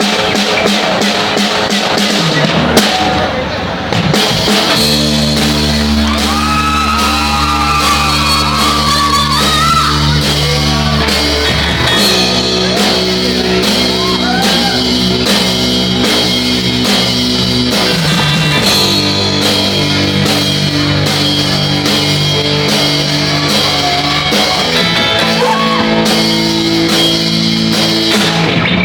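Live rock band playing with drum kit, distorted guitars and bass, with a female lead vocal coming in about five seconds in after a short break in the music.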